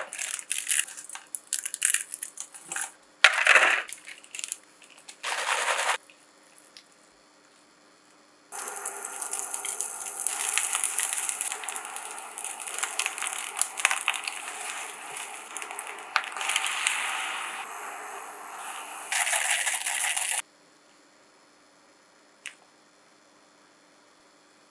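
Paper and plastic packaging crinkling and tearing in short irregular snatches as an instant ramen cup is opened. Then about twelve seconds of rice sizzling in a frying pan, with a spatula clicking and scraping as it stirs; this cuts off suddenly, leaving near quiet with one faint click.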